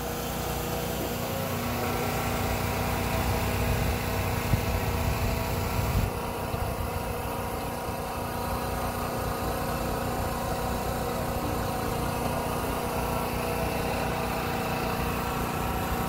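A steady mechanical hum made of several held tones over a low, uneven rumble, with two brief knocks about four and six seconds in.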